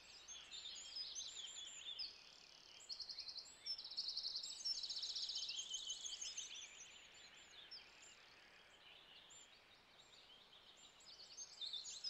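Faint outdoor birdsong: many high chirps and short, rapid trills overlapping, thickest from about three to six seconds in, then thinning out.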